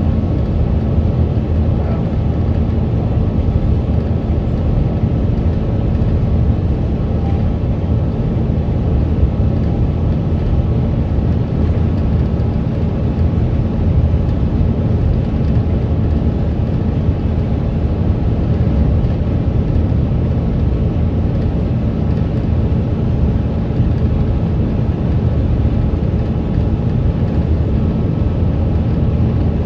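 Steady engine and road rumble of a moving bus, heard from on board, with a faint constant hum and no distinct events.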